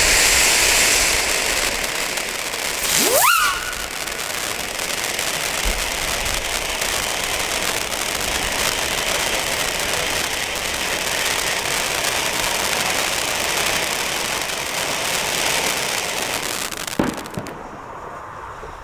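Ground fountain firework (Klasek spinner fountain) spraying sparks with a steady hiss, burning in place instead of turning on its base. A short rising whistle comes about three seconds in, and the hiss dies away near the end.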